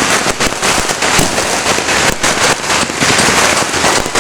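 Dense, continuous barrage of firecrackers and fireworks going off, many sharp pops and bangs overlapping into a steady crackle.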